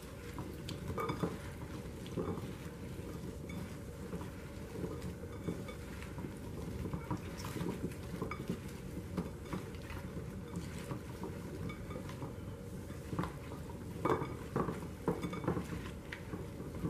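Hands tossing oil-coated chopped vegetables in a glass mixing bowl: irregular soft taps and clicks of the pieces against the glass, busier about two seconds from the end.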